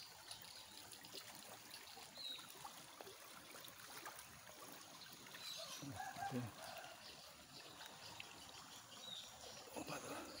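Faint outdoor ambience of trickling water, with a few short high bird chirps and a brief pitched call about six seconds in.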